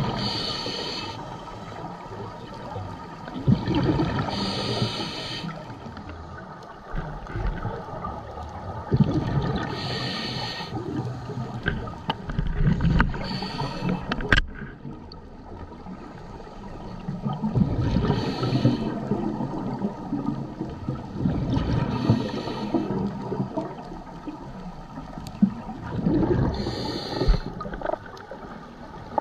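Scuba diver breathing on a regulator, heard underwater: a gush of exhaled bubbles about every four to five seconds, with quieter gurgling and inhalation between.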